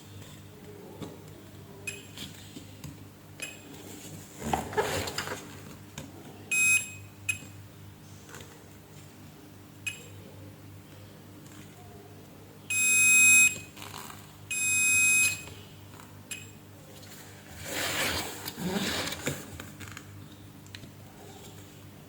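Electronic bench-equipment beeper sounding: a couple of short beeps about seven seconds in, then two longer, loud beeps about two seconds apart in the middle. Light clicks and handling noise from tools on the bench come in between.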